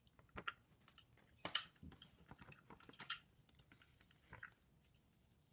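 Faint scattered rustles and soft clicks of a glossy paper flyer being handled and folded, a handful of short sounds over the first four and a half seconds.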